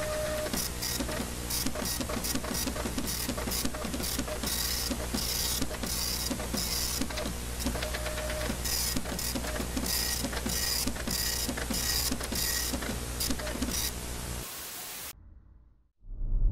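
Steady low hum under dense, irregular clicking and crackling, with short bursts of hiss coming two or three times a second. It stops abruptly about fifteen seconds in, and a low rumble starts right at the end.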